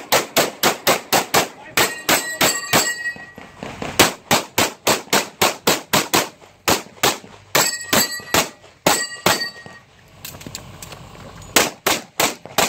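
Competition pistol fired in fast strings, about five shots a second with short pauses between strings and a longer lull near the end before a final string. Steel targets ring with the hits in two of the strings.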